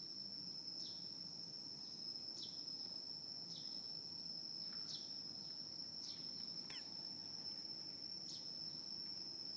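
Steady high-pitched drone of insects in the trees, one unbroken tone, with short falling chirps every second or so and one longer falling call about two thirds of the way through.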